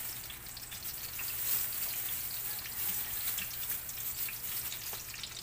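Fish frying in hot oil in a small pan on a gas burner: a steady sizzle with scattered small pops and crackles.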